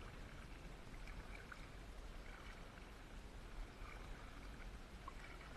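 Faint water sounds of an inflatable kayak being paddled: the paddle dipping and water dripping and trickling. A few faint short chirps sound in the background.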